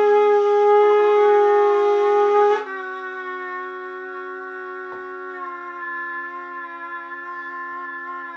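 A conch shell, an animal horn and a small trumpet each holding a long note together in a drawn-out fanfare chord. About two and a half seconds in, the loudest note, the conch's, stops suddenly, and the horn and trumpet hold on with quieter sustained notes.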